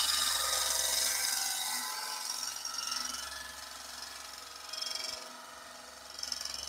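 Skew chisel shaving a spinning wood spindle on a lathe: a steady shaving sound that fades over the first few seconds, then swells briefly twice near the end, over a faint low hum of the lathe.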